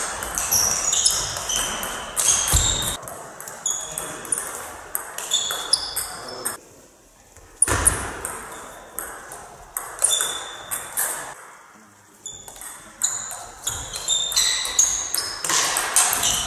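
Table tennis rallies: the ball clicking back and forth off the table and the players' bats, each hit and bounce a short high ping, twice broken by a brief pause between points.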